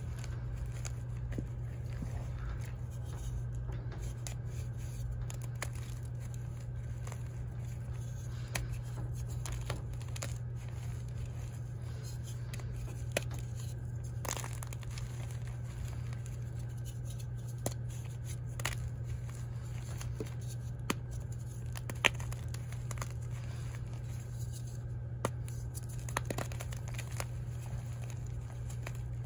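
Dyed gym chalk being crushed and crumbled by hand in a bowl: continuous soft crunching and crackling with scattered sharp snaps as chunks break, a few louder ones late on. A steady low hum runs underneath.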